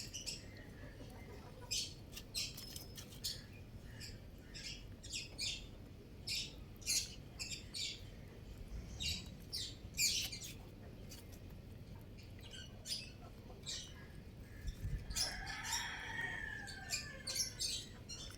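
Baby chicks peeping: many short, high-pitched cheeps at an irregular pace. About fifteen seconds in, a lower, drawn-out call falls in pitch over a second or two.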